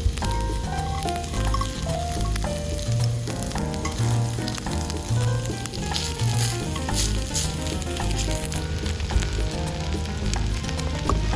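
Food sizzling and frying in a hot forged iron frying pan, a steady hiss with brief sharper crackles.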